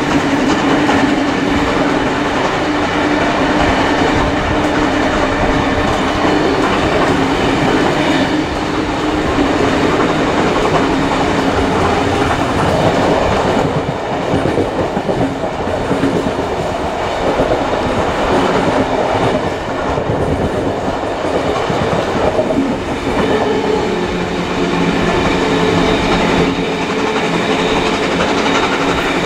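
Carriages of a heritage train hauled by steam locomotive 3801 running along the line, heard from an open carriage window: a steady, loud rumble of wheels on rail with clickety-clack over the rail joints.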